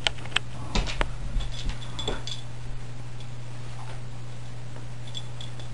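A few sharp clicks in the first second, huskies' claws on a hardwood floor, then a few faint high squeaks around two seconds in and again near the end. A steady low hum runs underneath.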